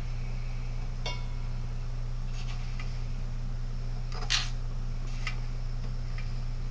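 A few light clicks and clacks of metal tools being handled, with one short ringing metal tink about a second in, as melted wax is spooned through a funnel to top off the slugs. A steady low hum runs underneath.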